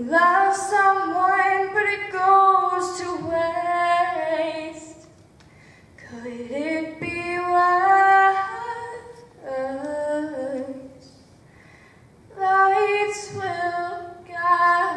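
A girl singing solo without accompaniment, in three sung phrases with held notes and short pauses between them.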